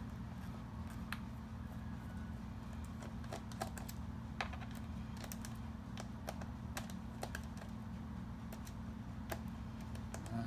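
Small screwdriver backing a screw out of an HP Pavilion DV7 laptop's plastic bottom case: faint, irregular light clicks and ticks as the tip works in the screw head, over a steady low hum.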